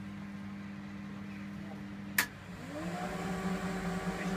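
Candy Aquamatic 2 compact washing machine running empty with a steady hum. About two seconds in there is a sharp click, then its motor whines up in pitch and settles into a louder, steady running hum.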